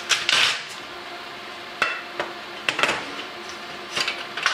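Sheet-metal ballast cover of a fluorescent light fixture being worked loose and lifted off: a short scraping rattle near the start, then several sharp metallic clicks and clanks.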